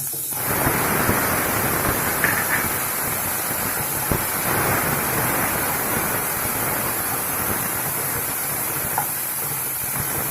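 Tomatoes tipped into a small amount of hot oil in a pan, sizzling: the hiss starts suddenly and then goes on steadily, with a few light knocks.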